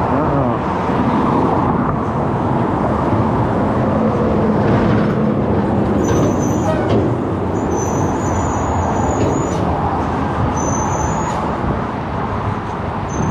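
Steady road and engine noise of a car being driven, a continuous rumble of tyres and motor.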